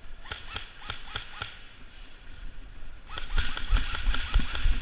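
Airsoft guns firing a quick string of sharp shots, each with a short falling ring. About three seconds in, heavier thuds and denser shots join in and it gets louder.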